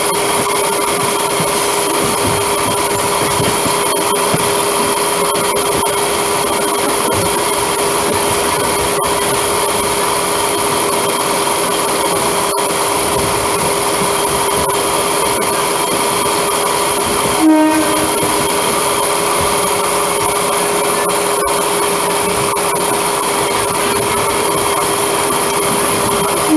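Steady running noise inside a moving electric suburban (EMU) local train coasting through the station approach, with a constant electric hum under it. A short, sharper sound stands out once, about seventeen seconds in.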